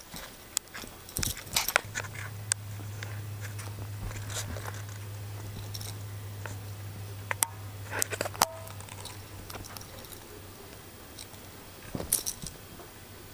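A puppy chewing and biting in play, with scattered small clicks and crunches, a few quick ones together near the end. A low steady hum comes in about two seconds in and fades out about ten seconds in.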